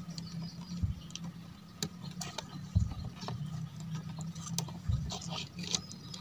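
Small sharp clicks and taps of fingers working the plastic wire connectors on an active speaker's amplifier board, with three dull low thumps about two seconds apart, over a faint steady low hum.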